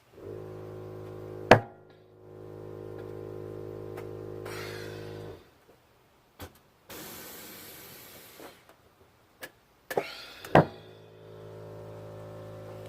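Air suspension compressor running with a steady hum while a brand-new Air Lift Performance strut is aired up, broken by a loud clunk about a second and a half in and two more knocks near the end, just before the compressor starts again. Air Lift Performance calls this clunk normal. A stretch of air hiss comes in the middle.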